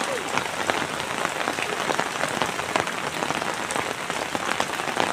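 Steady rain falling, with many sharp drop hits close to the microphone over an even hiss.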